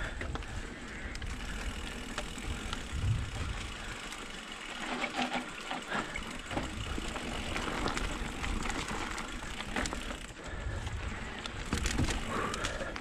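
E-mountain bike riding down a dry dirt trail: tyres running over dust and loose gravel, with scattered rattles and knocks from the bike over bumps. Wind rumbles on the microphone, dropping away for a couple of seconds near the middle.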